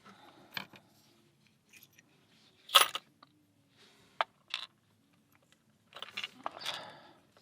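Small metal clicks and taps of lock pins and tools being handled while a pin-tumbler lock is taken apart. The loudest is a sharp click about three seconds in, with a short stretch of soft rustling near the end.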